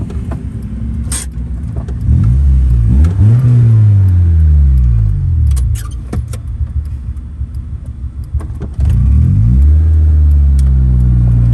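Loud car engine idling, then revved twice: the pitch climbs about two seconds in, holds, and sinks back to a rough idle, then climbs again near the end and stays up.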